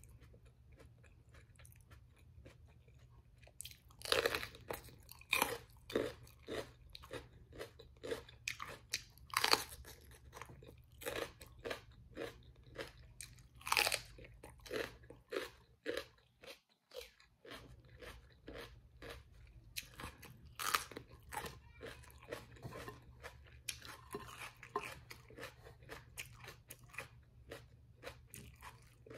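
Close-miked chewing of crisp fried battered food: rapid crunching chews begin about four seconds in, with a few louder crunching bites standing out.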